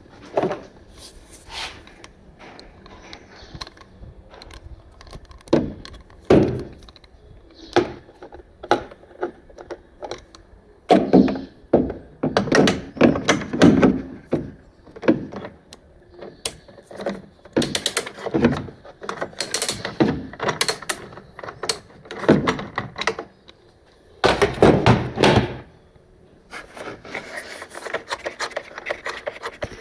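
A series of irregular knocks, clunks and clatters of objects being handled and set down, with rustling and scraping near the end.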